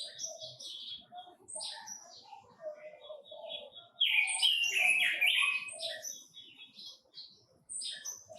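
Red-billed leiothrix (Quế Lâm bird) singing a rapid run of chirps and warbles, with a lower repeated note beneath. The song grows louder and fuller about four seconds in.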